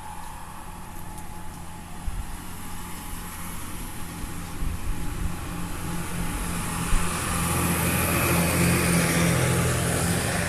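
A motor vehicle's engine running steadily, growing louder over the second half as it comes closer.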